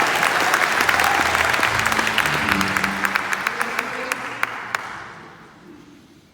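Audience applause with some voices mixed in, the clapping thinning to a few last claps and dying away about five seconds in.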